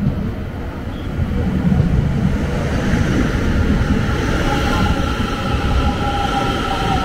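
ITX-Saemaeul electric train pulling in alongside the platform: a steady rumble of the train on the rails that grows louder about a second in. A thin high squeal or whine joins from about four seconds in.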